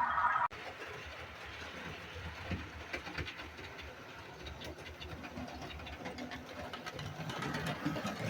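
Model railway trains running on the track: a low electric-motor rumble with many small clicks of wheels over rail joints, slightly louder near the end. A louder steady tone cuts off abruptly about half a second in.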